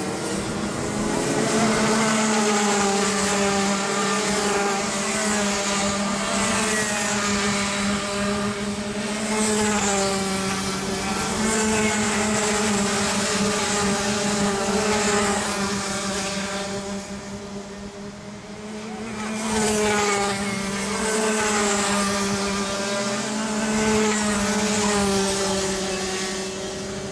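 A pack of Rotax Max Junior karts' single-cylinder 125 cc two-stroke engines at racing revs, their pitch rising and falling as they work through the corners. The sound fades a little about two-thirds of the way in, then swells again as more karts come by.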